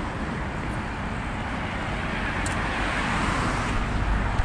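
Street traffic: car noise swelling as a vehicle passes about three seconds in, over a low rumble.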